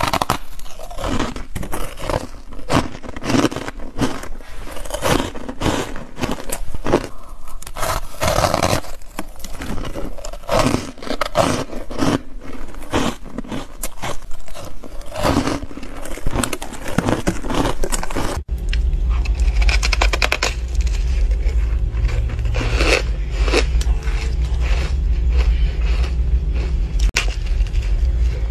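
Close-up crunching and scraping of teeth biting and chewing packed, snow-like ice in quick, irregular crunches. About two-thirds of the way through the recording changes, and a steady low hum runs under the crunching.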